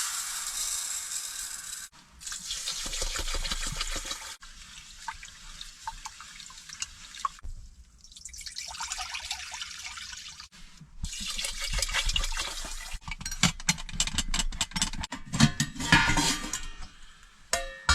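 Water pouring and splashing in several bursts of a second or two each, with short clicks and knocks of handling in between.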